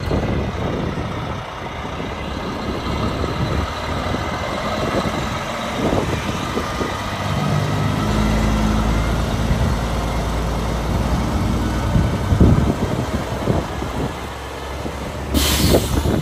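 Diesel engine of a Kenworth road-train prime mover hauling cement tanker trailers, running as the truck moves off. Its rumble builds about halfway through as it passes close, and there is a short hiss of air from the air brakes near the end.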